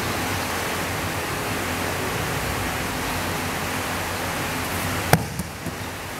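A single sharp slap about five seconds in as the thrown judoka lands on the tatami mat from a shoulder throw, followed by a couple of softer thuds, over a steady background hiss.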